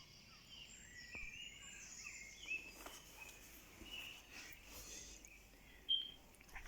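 Dawn chorus of several songbirds singing at once, faint overlapping chirps and warbling phrases, with one short clear whistle standing out near the end.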